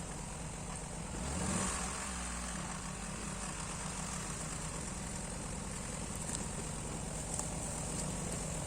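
Taiga 214 chainsaw engine idling steadily, with a brief swell about a second and a half in.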